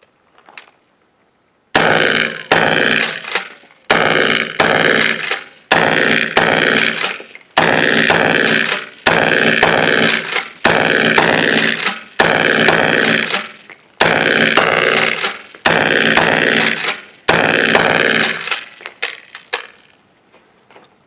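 DP12 double-barrel pump-action 12-gauge shotgun firing Aguila 1¾-inch minishell lead slugs in a long rapid string, the shots mostly coming in pairs, one from each barrel between pump strokes. The short shells feed and fire without a stoppage. The loud shots end a couple of seconds before the end, followed by a few quieter sharp sounds.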